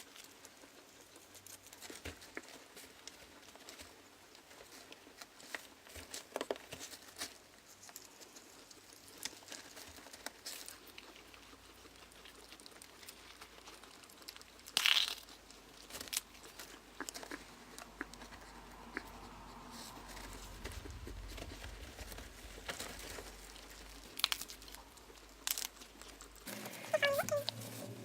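Guinea pigs moving about and eating, with crinkling rustles and scattered clicks, and a few short squeaks near the end.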